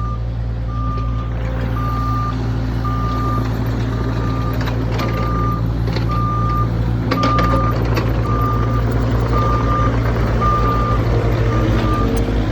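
Backup alarm on a diesel work machine or truck beeping steadily, about three beeps every two seconds, over the engine running: the machine is reversing. A few sharp knocks sound about midway.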